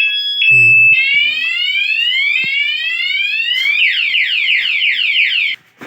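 Motorcycle anti-theft alarm siren cycling through its tones. It starts with two alternating high beeps, moves to repeated rising sweeps about a second long, then to fast rising chirps, about five a second, and cuts off shortly before the end.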